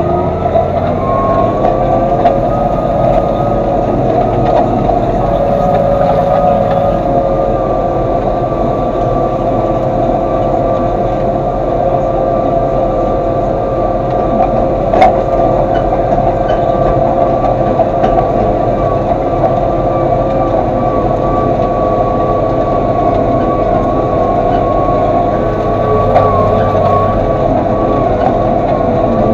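Massey Ferguson 3115 tractor engine climbing to working revs in the first second or so, then running steadily at high revs with a constant droning tone. One sharp click about halfway through.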